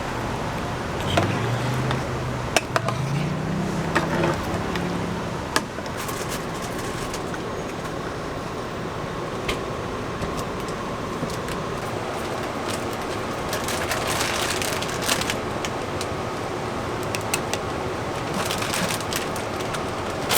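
Street ambience with steady traffic noise and scattered sharp clicks and clinks. A low engine hum rises in pitch over the first few seconds, and two brief hissy bursts come near the end.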